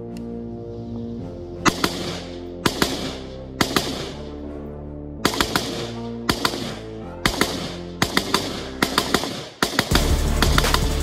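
Handgun shots fired in quick pairs and short strings, about a dozen, starting a second or two in, over background music that gets louder near the end.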